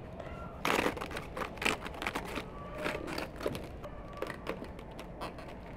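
Knife cutting into a fresh head of white cabbage on a wooden board: irregular crisp crunching and crackling as the blade goes through the leaves, loudest about a second in.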